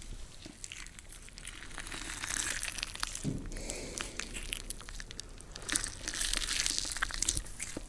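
Irregular crackling and crinkling noise, full of small clicks, with no tone or voice in it.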